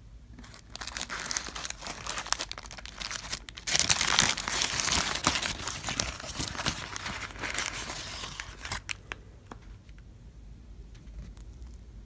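McDonald's paper sandwich wrapper crinkling and rustling as it is unwrapped by hand. It is loudest about four seconds in and dies away after about nine seconds, leaving a few faint ticks.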